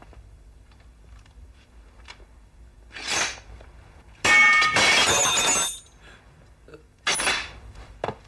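Steel swords clashing: a short strike about three seconds in, then a loud metallic crash with ringing that lasts over a second, like a blade being struck and broken, and one more strike near the end.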